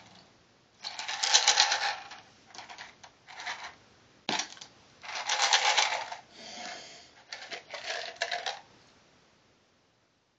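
Crunchy Goldfish-style cheese crackers being chewed in several bouts of crisp, rapid crackling, with a single sharp click a little past four seconds in.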